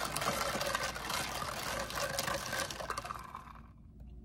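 Green tea with a water enhancer being mixed in its container: liquid sloshing with a rattle of small clicks, dying away about three and a half seconds in.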